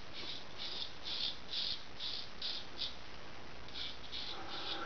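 Gold Dollar 66 straight razor scraping through lathered stubble in short, rhythmic strokes, about two or three a second, with a short pause about three seconds in. This is the second pass, where the blade slides easily.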